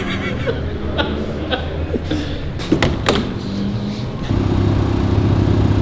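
Car engine running steadily, with a few short clicks and knocks. About four seconds in, a louder, steady low engine note takes over.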